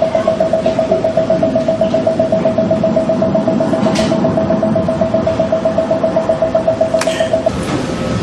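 An electronic tone beeping in rapid, even pulses, a sound played to relax the brain toward sleep; it cuts off about seven and a half seconds in. Two faint clicks, one about four seconds in and one about seven.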